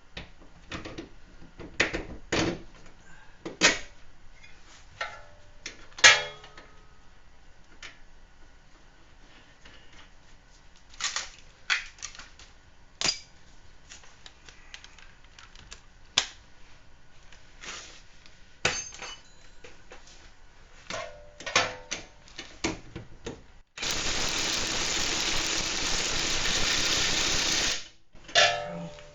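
Scattered metallic clicks and knocks of hand tools and car parts being handled. Near the end a power tool runs steadily for about four seconds, starting and stopping abruptly, as the rear shock bolt is driven in.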